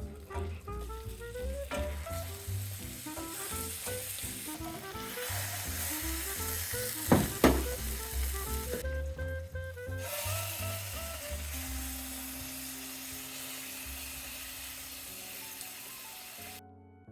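Salmon frying in a pan: a steady sizzle, with two sharp clicks about seven seconds in. The sizzle cuts off near the end.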